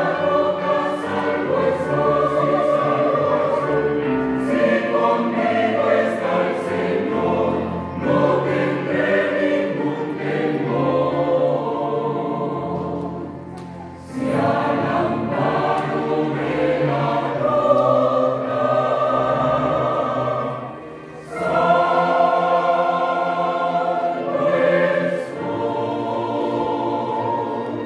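Mixed choir of men's and women's voices singing a hymn with piano accompaniment, pausing briefly between phrases about fourteen and twenty-one seconds in.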